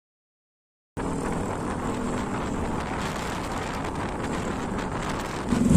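Total silence for about a second, then a sudden cut in to steady riding noise: a motorbike's engine and wind rush picked up by an on-board camera. It gets louder near the end.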